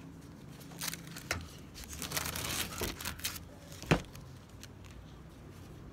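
Rustling and crinkling from hands handling small things, with a few short clicks, the sharpest about four seconds in. The jigsaw is not running.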